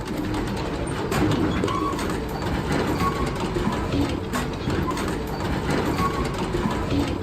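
Industrial sawmill log-conveyor machinery running: a steady low rumble with scattered clattering knocks and a few short squeaks.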